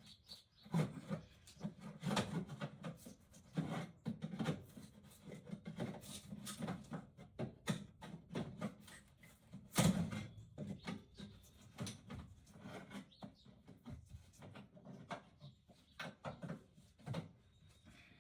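Thin wooden wall panel being pried and bent away from a camper wall: the wood creaks and rubs, with many small irregular pops as the adhesive lets go, and one louder crack about halfway through.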